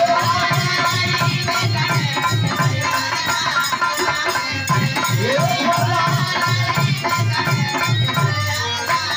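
Live Birha folk music: a steady drum beat with jingling hand-percussion, and a voice sliding through a sung phrase about five seconds in.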